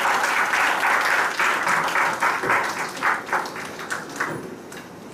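Audience applauding, dense at first, then thinning to scattered claps that die away about four seconds in.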